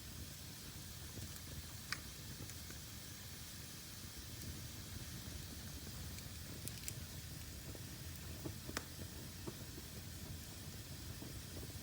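Fire burning in a fireplace: a steady hiss and low rumble, broken by a few sharp crackles and pops.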